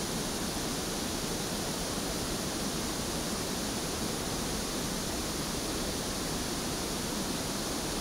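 Steady pink noise test signal, the hiss used to measure a microphone's frequency response on a real-time analyzer.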